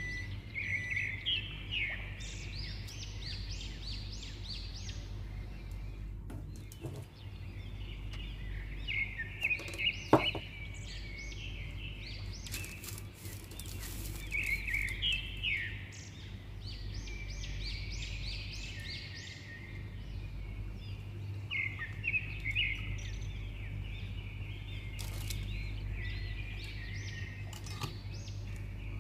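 Small birds chirping in quick repeated trills, in clusters, over a steady low hum, with a single sharp click about ten seconds in.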